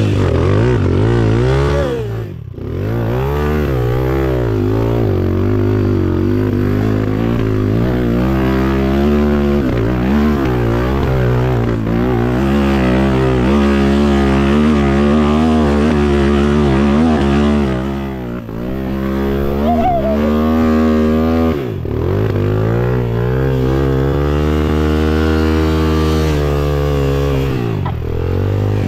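Dirt bike engine revving up and down continuously under load, its pitch rising and falling with the throttle, with brief throttle drops shortly after the start and twice more about two-thirds of the way through.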